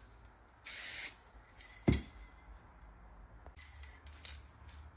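Aerosol lacquer can spraying in short hissing bursts: one about half a second long just before a second in, and fainter ones near the end. A single sharp knock about two seconds in is the loudest sound.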